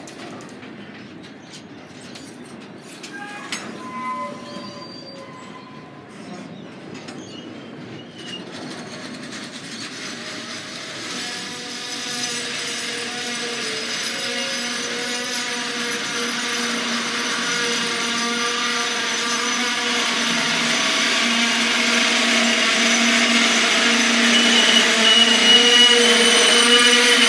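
Container freight wagons rolling slowly past on jointed track, the wheels and brakes giving a steady ringing squeal as the train brakes to stop in a passing loop. The sound grows steadily louder, with a higher squeal joining near the end.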